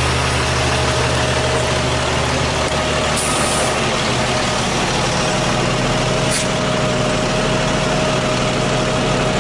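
Lodal EVO garbage truck's diesel engine running close by, with a steady whine held throughout. A brief high hiss comes about three seconds in, and a sharp click a little after six seconds.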